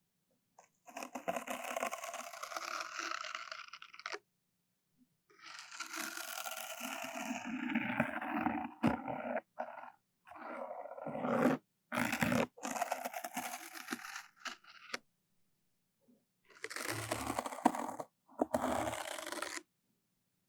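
Close-miked ASMR trigger sounds: bursts of scraping and rubbing, each lasting one to a few seconds, with sudden silent gaps between them.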